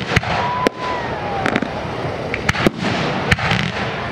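Aerial fireworks bursting: a string of sharp bangs, some in quick pairs, over continuous crackling. A thin whistle slides down in pitch during the first second and a half.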